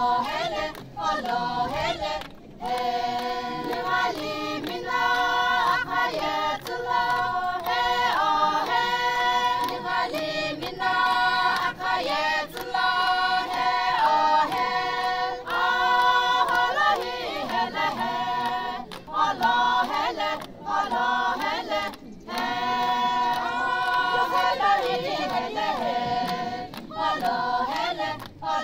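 A group of women singing together in unison, a Sumi Naga folk song sung in short phrases with brief breaks between them.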